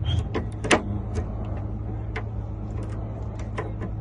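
Small metal lock parts clicking and tapping as a spring is worked into a truck compartment lock mechanism, a handful of sharp clicks with the loudest about a second in, over a steady low hum.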